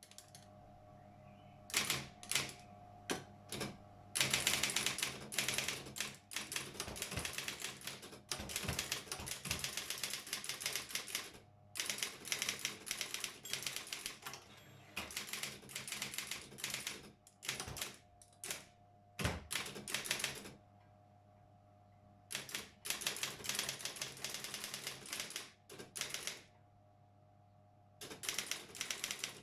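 Brother 4612 electric typewriter typing in long runs of rapid key strikes, broken by a few short pauses, over a steady motor hum.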